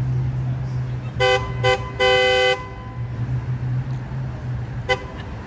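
Car horn honked in three blasts (two short, then one of about half a second) starting a little over a second in, and once more briefly near the end, over a steady low engine hum.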